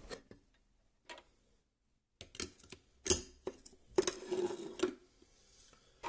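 Sharp clicks and light knocks of an enclosure being handled and covered. There are a few at first, then after a short silence a quicker run of about eight, the loudest about three and four seconds in.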